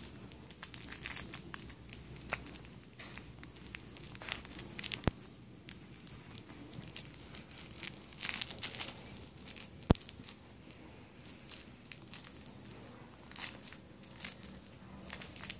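Six-week-old Labrador puppy chewing and pawing a plush toy, its crinkly stuffing giving irregular crinkling and rustling. Two sharp clicks stand out, about five and ten seconds in, the second the loudest.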